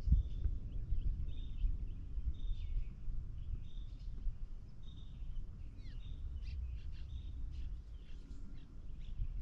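Wild birds calling, short chirps repeated over and over with a few quick downward-sweeping notes, over a steady low rumble.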